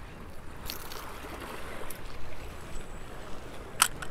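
Small waves washing and lapping against jetty rocks, with one sharp click near the end.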